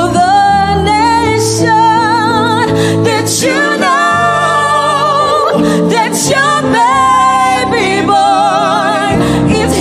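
Woman singing wordless held notes and runs with wide vibrato over instrumental accompaniment, in a gospel style.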